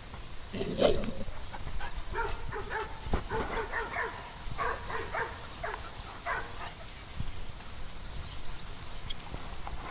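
Dog barking in a run of short, repeated barks in the middle of the stretch, after a louder burst of sound about a second in.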